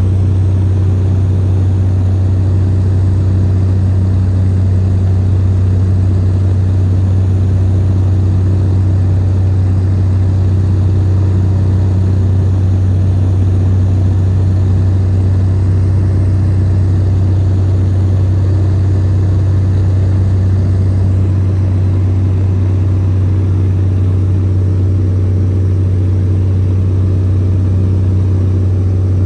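Light airplane's engine and propeller running steadily in flight, heard from inside the cabin: a loud, even low hum that holds its pitch.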